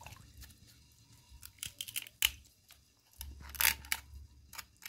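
A kitchen knife scraping scales off a soaked salt fish in a metal bowl, making a run of short, irregular scrapes and clicks. The scales come away easily, loosened by the hot-water soak.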